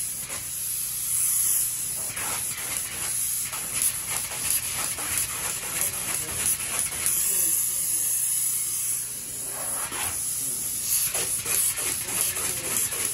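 Spray foam gun hissing steadily as it sprays polyurethane insulation foam into floor joist bays.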